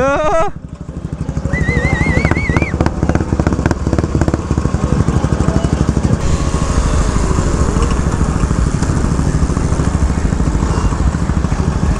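Two-stroke scooter engines: one revs up sharply and drops off about half a second in, then the engines putter along at low speed. A brief warbling high tone sounds about two seconds in.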